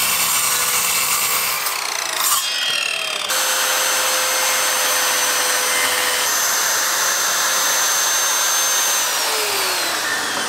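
Parkside electric saws cutting wooden boards: first a sliding mitre saw, then a plunge saw running along a guide rail. Near the end the saw's motor whine falls in pitch as it spins down.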